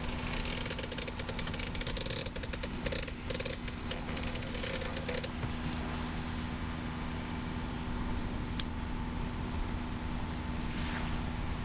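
Gulfstar 41 sailboat under way at about six and a half knots: a steady low hum over the rush of water and wind. A dense crackle and splash runs through roughly the first five seconds, then the sound settles to the even hum and rush.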